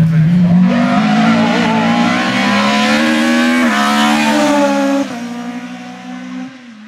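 Opel Kadett C rally car's engine at full throttle, its note climbing through the revs with one quick upshift partway through. About five seconds in the note drops suddenly and the sound becomes much quieter.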